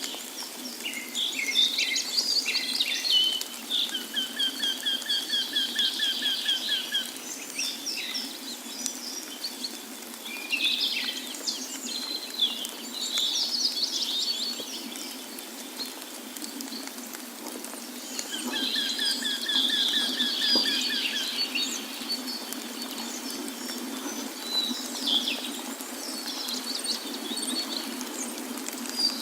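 Several birds singing and chirping over a steady rush of falling water. A rapid, even trill sounds twice, a few seconds in and again just past the middle.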